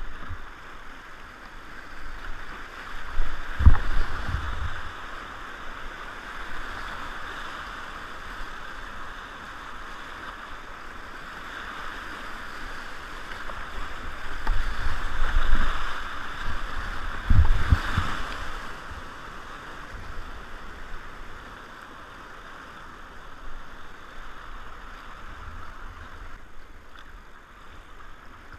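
Whitewater rapids rushing and splashing around a kayak paddled through them, heard close up from the boat. A few heavy low thumps stand out about four seconds in and again in the middle of the stretch.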